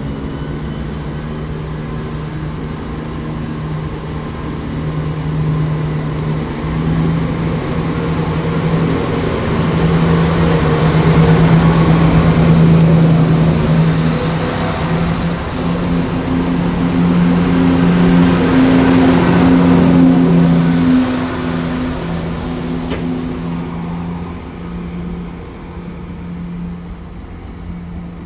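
Chiltern Railways class 168 diesel multiple unit pulling out, its underfloor diesel engines accelerating with a steady droning note. It grows louder to a peak in the middle, then fades away toward the end.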